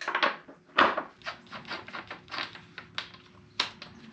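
Socket wrench on the 32 mm rear axle nut, loosening it: a string of irregular metallic clicks and knocks, a few a second, with a couple of louder knocks.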